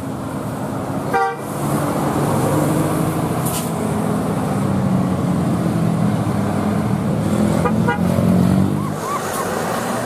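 Buses and motorbikes passing on a road: a steady low engine drone with traffic noise, and two short horn toots, one about a second in and another near eight seconds in.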